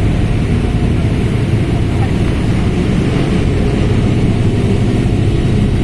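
Mercedes-Benz OF1721L BlueTec 5 bus's diesel engine running at a steady speed, a constant low drone.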